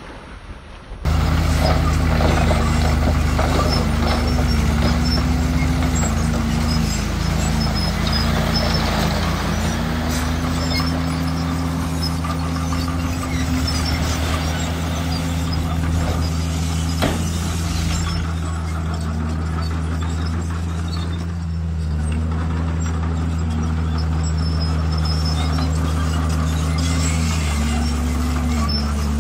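Heavy earthmoving machine's diesel engine running steadily, cutting in abruptly about a second in.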